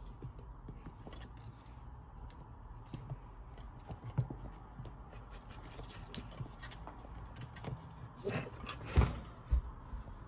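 Kittens playing: scattered light scratching and rustling of paws and claws on a crocheted yarn basket and soft blankets, with a few louder thumps and rustles near the end.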